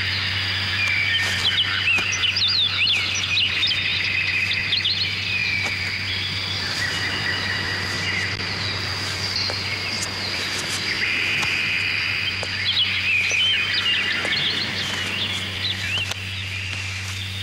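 Small birds chirping and twittering in many quick, short calls, in two busier spells. Under them run a steady high tone and a low hum.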